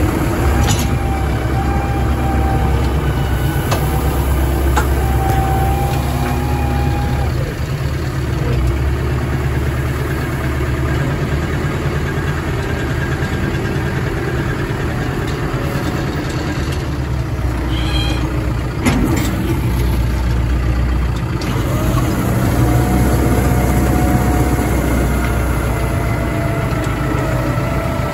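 A heavy engine running steadily, with a thin whine that comes and goes and a single sharp knock about nineteen seconds in.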